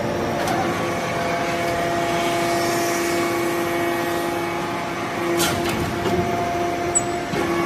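Aluminum shavings baler's hydraulic press running, a steady machine hum with a held tone, and a brief click about five and a half seconds in.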